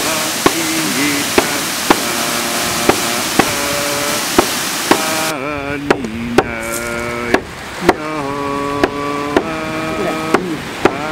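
Voices singing over a drum struck in pairs, two beats half a second apart repeating about every second and a half. For the first five seconds a waterfall's rushing water lies under the song, then cuts off abruptly.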